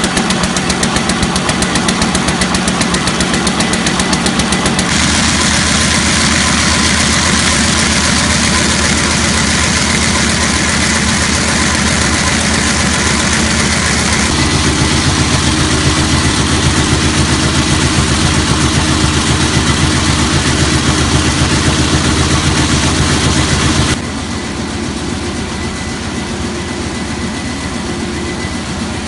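Automatic paper bag making machine running at speed: a loud, steady, rapid mechanical clatter that changes abruptly about five and fourteen seconds in. From about twenty-four seconds in, a quieter kraft paper slitting and rewinding machine runs.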